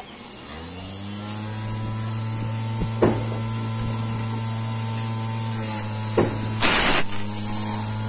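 The 12-volt DC motor of a homemade key cutting machine switches on and spins up within about a second to a steady hum. A short click comes about three seconds in. Near the end, harsh rasping bursts come as the cutter wheel bites into the brass key blank.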